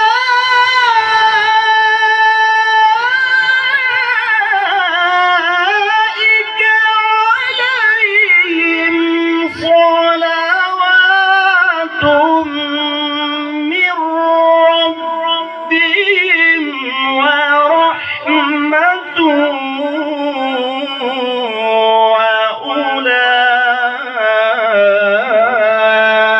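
A male Quran reciter chants through a handheld microphone in a melodic, melismatic tajwid style. His high voice draws one phrase out in long, ornamented held notes. The notes step gradually lower in pitch over the passage, broken only by a few short breaths.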